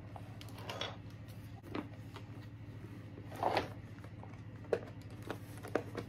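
Small plastic doll accessories being picked up and sorted by hand: scattered light clicks and rustles, the biggest rustle about halfway through, over a low steady hum.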